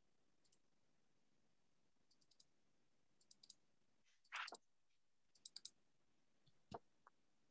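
Near silence broken by faint, quick clusters of clicks at a computer as the photos are browsed. There is a short, louder soft noise about four and a half seconds in, and a sharper single knock near the end.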